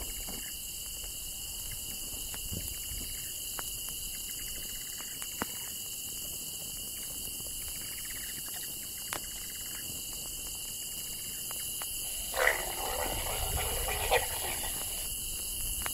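Crickets chirring steadily, with a couple of faint clicks. About twelve seconds in, a leopard gives a loud growling call lasting about two seconds: a mating call.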